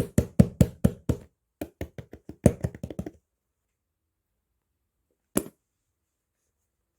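Rapid knocking on a hard surface. A run of about six knocks is followed, after a short pause, by a faster run of about ten, and a single knock comes a couple of seconds later.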